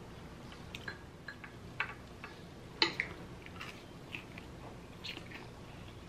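Close-miked mouth sounds of biting into and chewing a pan-fried gyoza dumpling: soft wet smacks and clicks, the loudest about three seconds in.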